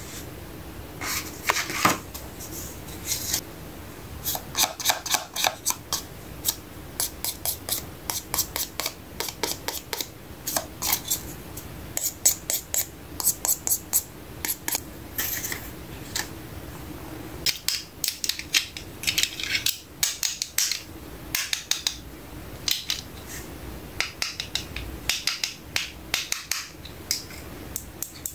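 Hands handling small plastic toy pieces and paper play money: a steady run of irregular sharp clicks, taps and rustles.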